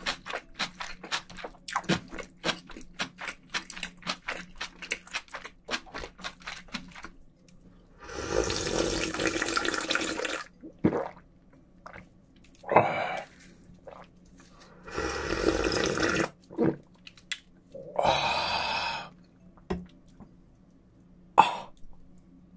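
Close-miked eating of cold naengmyeon: wet chewing clicks for the first several seconds, then the icy broth slurped straight from a stainless steel bowl in several long, drawn-out sips with short gulps between.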